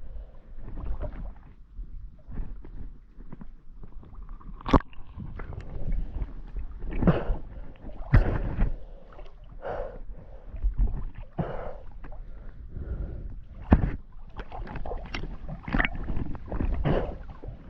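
Water sloshing and splashing in irregular surges every second or two, with a low rumble and three sharp knocks.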